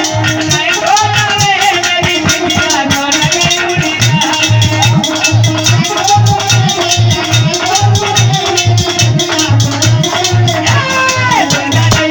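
Indian devotional bhajan music: a steady low drum beat with fast rattling hand percussion under a wavering melody line.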